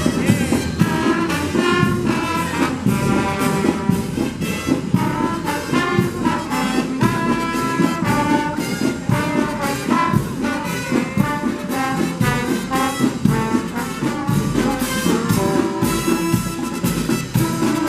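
Marching band playing: trumpets, trombones and saxophones carry the tune over drums keeping a steady beat.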